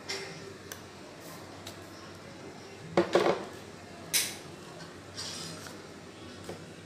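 Metal ice cream scoop scraping through frozen ice cream in a plastic tub and knocking against the tub and bowl, with a quick cluster of knocks about three seconds in and a sharp clink about a second later.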